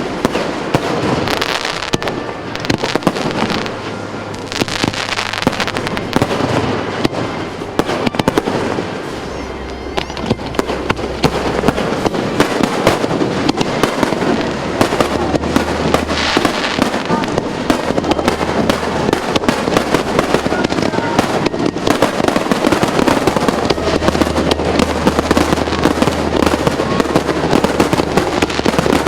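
Fireworks display: a dense, continuous run of bangs and crackling from aerial shells.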